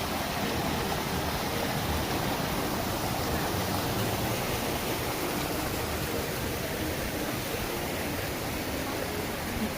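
Steady rush of water falling at Shiraito Falls, a wide, low curtain waterfall fed by spring water seeping out of the rock face.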